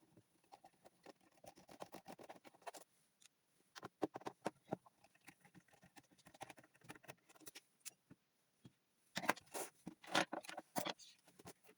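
Irregular small clicks, taps and light scraping from hands and tools working on a laptop's plastic case, with a louder run of clicks about nine to eleven seconds in.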